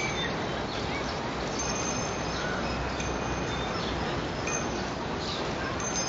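Steady rush of wind and rolling noise on a phone microphone carried on a moving bicycle, with short, high tinkling tones scattered over it.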